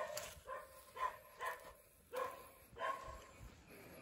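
A dog barking repeatedly, six short barks about half a second apart, dying away after about three seconds.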